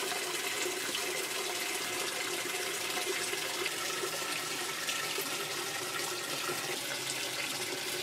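A Whirlpool direct-drive top-loading washer filling: water pours steadily into the tub before the agitator starts.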